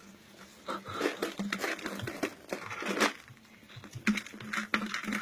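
Puppies chewing and knocking empty plastic bottles about on a concrete floor: plastic crinkling, scraping and clattering in irregular spells, with a short lull in the middle.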